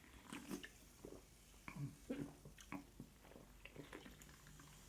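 Faint, irregular chewing and wet mouth noises of someone eating Cajun-sauced seafood, a soft smack or click every half second or so.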